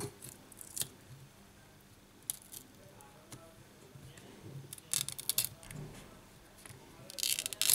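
Several short crackles and clicks as a smartphone display module is pulled away from its plastic frame and adhesive, with a cluster about five seconds in and another near the end.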